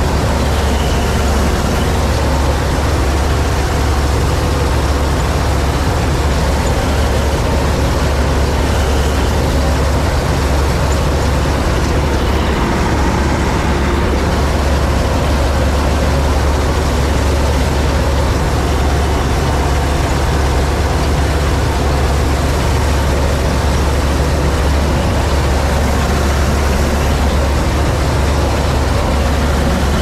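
Massey Ferguson 86 combine harvester running steadily under load while harvesting wheat, heard from the driver's seat in its cab: a loud, unbroken low engine drone with a dense rush of machinery noise above it.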